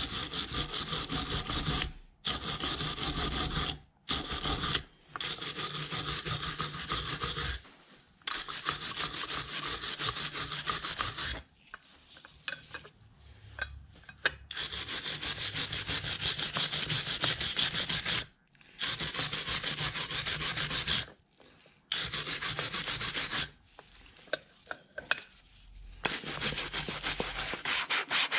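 Hand sanding on the rusty metal parts of a vintage hand-crank ice cream maker: quick, scratchy back-and-forth rubbing strokes in several runs, broken off abruptly by short gaps.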